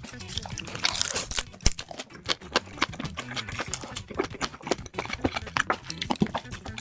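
Close-miked eating sounds: quick, irregular chewing clicks and mouth smacks, several a second.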